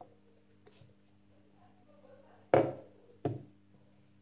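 Two knocks about three-quarters of a second apart, the first louder, as a small Bluetooth speaker is put down on a table, over a faint steady low hum.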